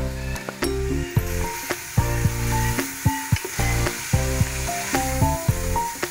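Sliced onions sizzling in hot oil in a pressure-cooker pot, a steady frying hiss with some stirring. Background music with a simple stepping melody plays over it.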